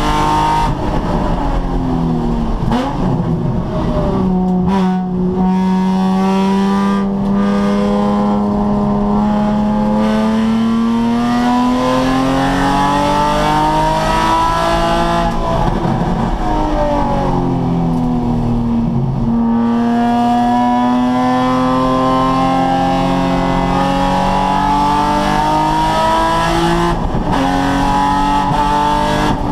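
Nissan 350Z's 3.5-litre V6 being driven hard on track. The engine note climbs in long pulls and falls back sharply about a second in, again about halfway through and near the end.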